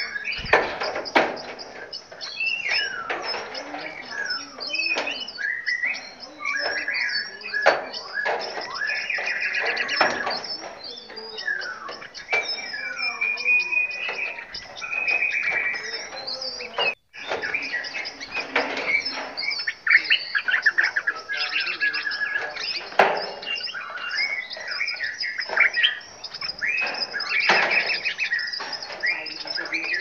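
Many caged songbirds in an aviary chirping, trilling and whistling at once, their calls overlapping without pause. The sound cuts out for a moment about seventeen seconds in.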